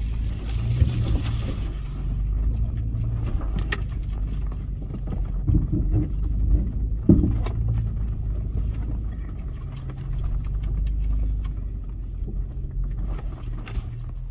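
Four-wheel-drive vehicle's engine running steadily at low revs while driving off-road, with a few sharp knocks, the loudest about seven seconds in.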